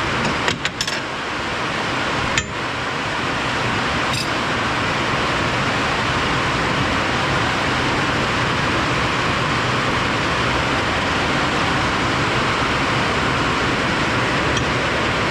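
Steady, loud rain, with a few sharp metal clinks in the first few seconds.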